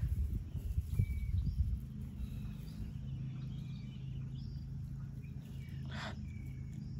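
Outdoor ambience: a steady low rumble with a few faint, short bird chirps. There are some low bumps of handling noise in the first couple of seconds, and a brief rustle near the end.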